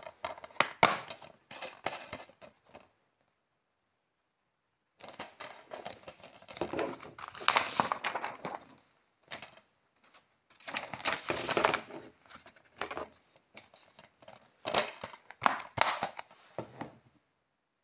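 Plastic film crinkling and tearing as it is peeled from a DVD case, with the clear plastic keep case clicking and snapping as it is opened and handled. The sounds come in several short bursts of crackles and clicks, with a silent gap after about three seconds.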